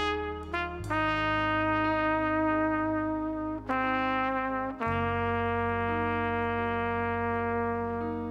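Solo trumpet playing the slow opening melody of a ballad over a low sustained band accompaniment. A few short notes at first give way to long held notes, the last held for about three and a half seconds.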